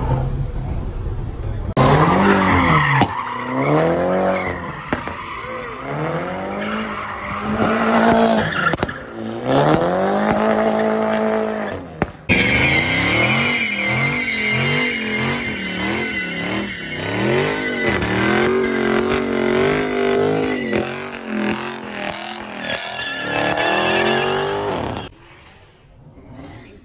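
High-powered V8 cars doing burnouts and donuts: engines revved hard in repeated rising and falling swings, with tires squealing as they spin. A brief break comes near the middle, faster rev swings follow over a steady tire squeal, and the sound drops off near the end.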